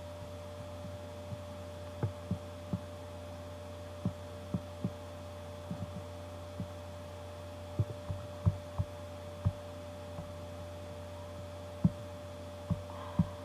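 Irregular short taps and clicks from a laptop being worked, about fifteen of them, unevenly spaced, over a steady electrical hum.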